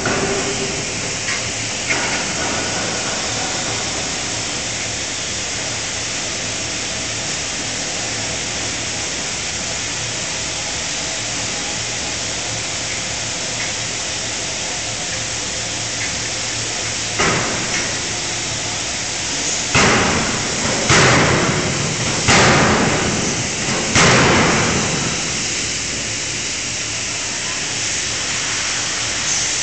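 A 5-tonne fully hydraulic closed-die forging hammer striking a hot workpiece in the die. There are single blows near the start and about two seconds in, then a run of five heavy blows a second or so apart in the second half, each ringing out in the hall. A steady hiss runs underneath.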